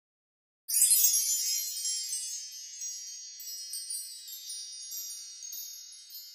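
Shimmering chimes sound effect: many high, tinkling metal tones struck together about a second in, ringing on and fading slowly over about five seconds.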